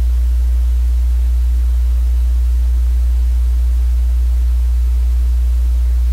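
Steady, loud low electrical hum with a hiss over it, unchanging throughout.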